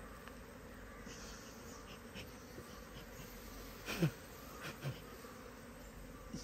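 Honeybees buzzing faintly and steadily as they are driven to fly off a frame from a queenless, smoked colony. Two short sounds that fall in pitch stand out, about four and five seconds in.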